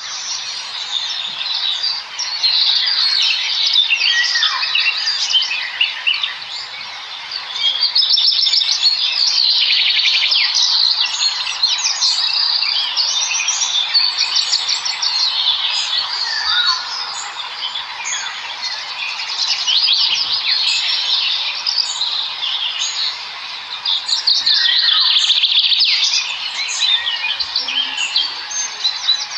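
A flock of small birds chittering and chirping together, many short overlapping calls and trills in a dense, unbroken chorus.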